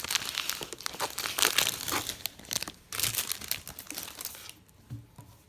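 Packaging crinkling and tearing as a wool knitted tie is unwrapped, in irregular rustling bursts that stop about four and a half seconds in.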